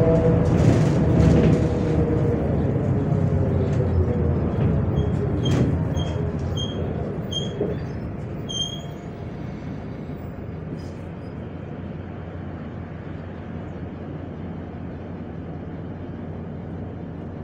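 MAZ 105 articulated diesel city bus heard from on board: the engine note falls and the running noise fades over the first half, as when the bus slows, then settles to a steady, quieter rumble. About a third of the way in comes a row of about six short, high beeps, evenly spaced.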